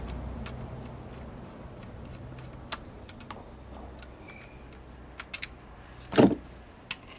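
Small clicks and ticks of a screwdriver and hands working a screw out of the plastic head of a Greenworks 40V cordless string trimmer, then a single dull thump about six seconds in as the trimmer is shifted in its cardboard box.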